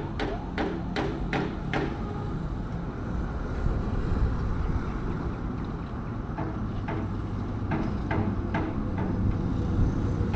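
Rapid knocking, about three sharp strikes a second, over a steady low machinery rumble from bridge construction work. The knocks come in a run at the start, stop for a few seconds, then resume near the end.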